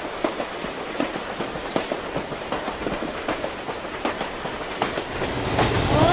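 Passenger train carriage running, heard from inside the compartment: a steady rumble with irregular clatter and knocks. Voices start up near the end.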